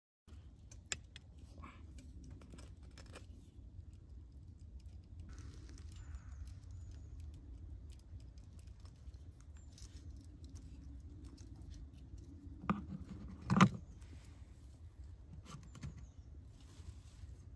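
Small clinks and scrapes of a metal spoon in a glass jam jar and of jam being spread on bread slices on a wooden board, with a louder knock about thirteen seconds in. A steady low rumble runs underneath.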